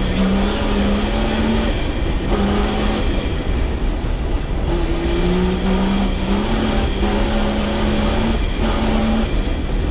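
Rally-raid off-road car's engine running hard. Its note holds level, then drops out and shifts pitch several times.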